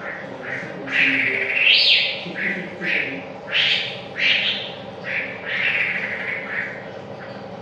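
A wambi bird singing a continuous run of short, harsh notes, some sweeping upward in pitch, about one to two a second: the rolling song ('ngerol') played as a lure to set caged birds singing.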